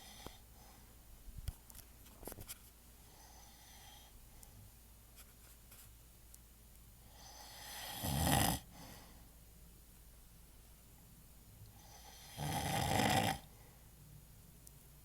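A man snoring in his sleep: two loud snores, the first swelling up a little past halfway and the second near the end.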